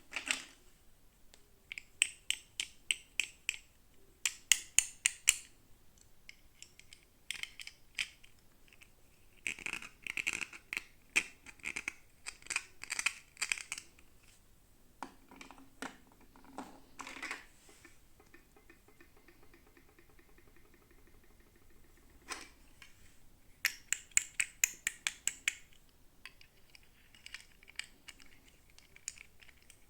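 Toy doll packaging being handled and opened by hand: bursts of quick plastic clicks, taps and crinkles, with a short scraping rasp about two-thirds of the way through.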